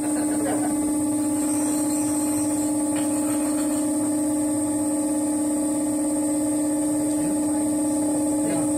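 Steady hum of an electric machine with a constant high hiss over it, running evenly without change.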